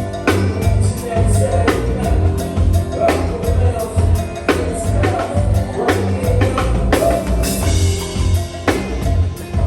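Live band playing a go-go bounce-beat groove: heavy bass, drum kit and percussion in a steady rhythm, with keyboard lines over it and a cymbal crash about seven and a half seconds in.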